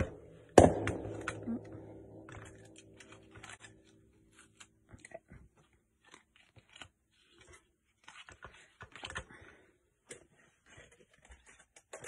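Die-cut card pieces being handled on a craft cutting mat: scattered light taps, clicks and paper rustles. About half a second in there is a sharp knock on the work surface that leaves a ringing tone fading away over about four seconds.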